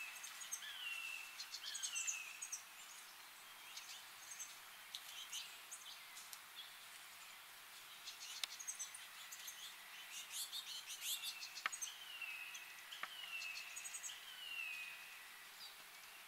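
Wild birds calling and chirping faintly, with short downward-sliding notes given in a quick run of three near the start and again about two-thirds through, over a faint hiss of insects.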